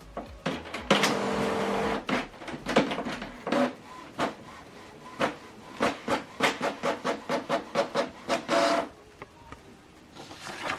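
Canon PIXMA TS7750i inkjet printer printing a test page. A motor whirs for about a second, then comes a long run of quick clicks and ticks, with another short whirr near the end.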